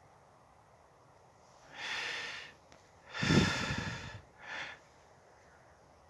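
Three short breaths close to the microphone, the middle one longest and loudest.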